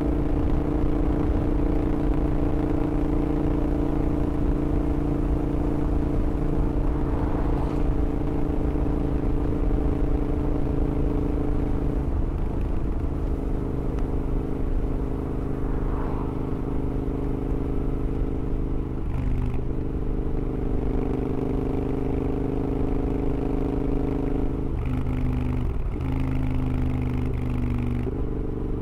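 Modified 865cc big-bore Royal Enfield Interceptor parallel-twin engine running under way through high-flow headers and mufflers, a raw exhaust note. The note holds mostly steady, with brief dips and steps in pitch about halfway through and a few more in the last few seconds.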